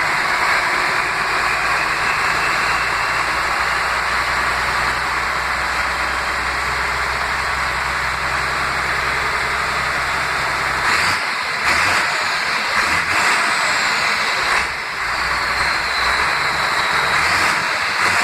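Turbocharged Deutz Power Diesel 145 engine of a Pla Map 3000 self-propelled sprayer running, with a loud rushing turbo hiss from a 'pente na turbina' comb fitted in the turbo intake. The low engine rumble drops away about 11 s in, and thin whistles falling in pitch sound over the hiss in the second half.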